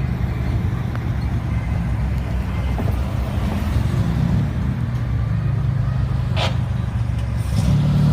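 Classic car engine running at low speed as the car rolls slowly out of a show lot, growing louder near the end as it comes closer. A brief high squeak about six and a half seconds in.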